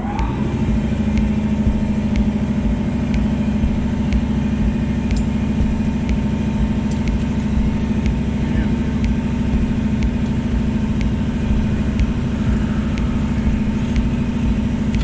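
Caterpillar 3406E inline-six diesel in a semi truck, running at a steady idle with an even hum.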